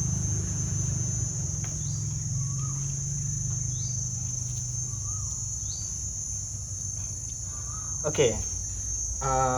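Crickets or other insects trilling continuously in a steady high-pitched chorus over a low steady hum, with a few faint short chirps.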